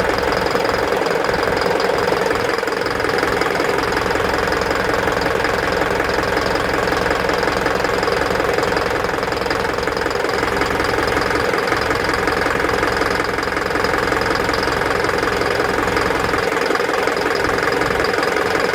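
Isuzu NPR diesel engine idling steadily with its usual diesel clatter. It runs smooth now that the loose cylinder 2 injector connection, the cause of the P0202 code and the knocking, has been found.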